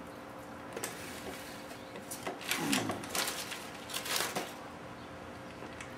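Rustling and light clicks of hands handling a piston and wiping it with a cloth shop rag at a workbench, busiest in the middle, over a steady faint hum.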